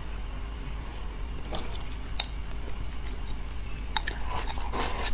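Eating utensils clinking and scraping against a bowl while soup is scooped up, a few sharp clicks spread out and then a quick cluster near the end.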